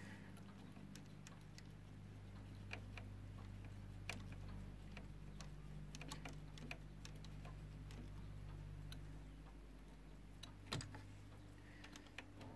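Faint, irregular small clicks and taps of fingers handling the metal pinch-roller and head assembly of a Grundig reel-to-reel tape deck during cleaning, over a steady low hum.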